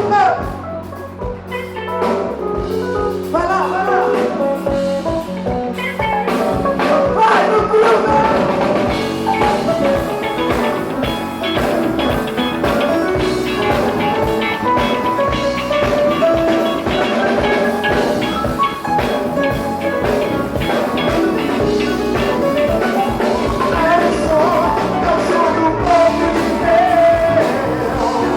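Christian band playing an instrumental passage: a drum kit keeps the beat under a melodic lead, with held bass notes at first and the full band coming in about eight seconds in.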